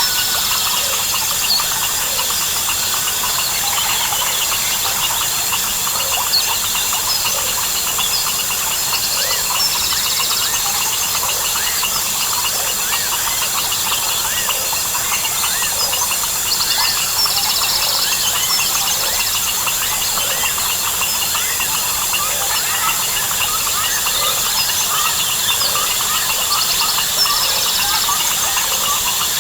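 Dense jungle chorus of crickets, frogs and birds: a constant high insect drone under a steady stream of short chirping calls, with rapid buzzy trills coming in every few seconds.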